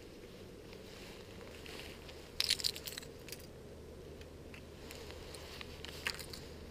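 Fishing tackle being handled: brief clicking and rattling from a baitcasting reel, rod and a hooked topwater lure, loudest about two and a half seconds in and again near the end, over a low steady hum.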